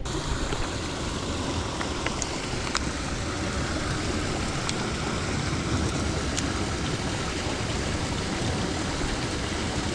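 Steady rush of water flowing through a small irrigation channel, with a few faint ticks.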